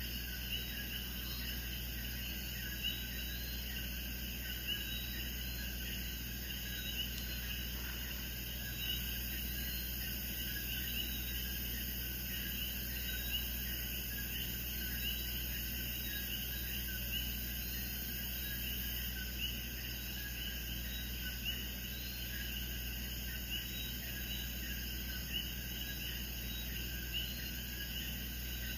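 A steady chorus of chirping insects calling together at a high, even pitch, with a low steady hum beneath it.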